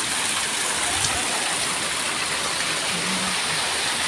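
Small forest waterfall and its stream: water rushing steadily over rocks.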